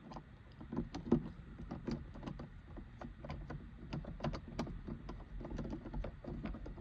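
Irregular small clicks and taps of a screwdriver working T10 Torx screws out of a car's interior roof trim.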